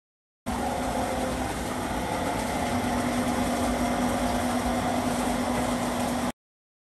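Industrial laundry machine running: a steady motor hum with a few fixed tones over a rush of noise, with soapy water draining from it. The sound comes in about half a second in and cuts off suddenly near the end.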